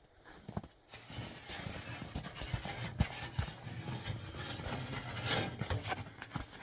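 Irregular knocks and scuffs from the temporary metal stairs being handled and set in place, over a low steady hum.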